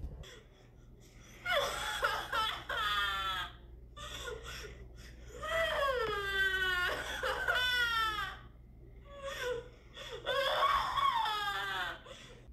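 A high-pitched voice crying and sobbing in three bouts, its pitch sliding up and down, with short quiet breaks between them.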